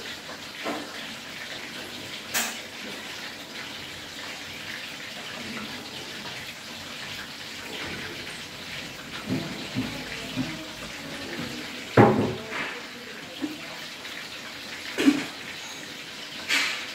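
Food sizzling steadily in hot oil in a frying pan, with a spatula knocking and scraping against the pan now and then; the loudest knock comes about twelve seconds in.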